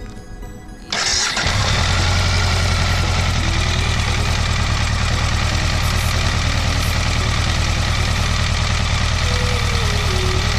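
BMW K1200RS motorcycle's inline-four engine cranked and catching about a second in, then settling into a steady idle.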